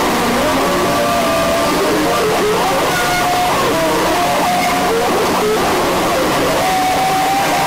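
Experimental noise sound collage: a steady, loud wall of hiss and static layered with many short, scattered pitched tone fragments and chopped sample snippets.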